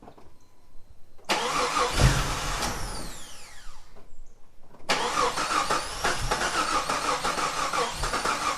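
1999 Jeep Cherokee XJ's starter cranking the engine twice, a roughly three-second try and then a longer one, without the engine catching. The owner puts the weak cranking down to a low battery.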